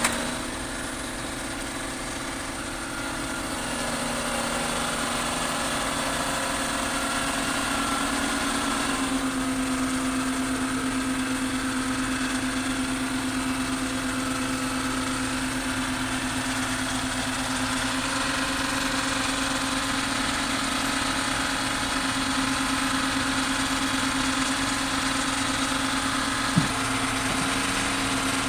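Excavator engine running steadily, with a steady hum that steps up slightly in pitch about a third of the way through. There is a single sharp click near the end.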